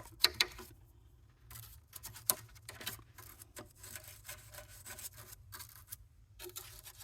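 Small cleaning brush scrubbing inside a sewing machine, making a rapid, irregular series of short scratchy strokes with a couple of louder ticks.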